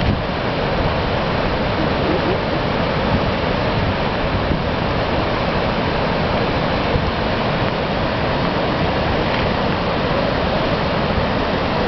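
Gullfoss waterfall: a steady rush of falling water.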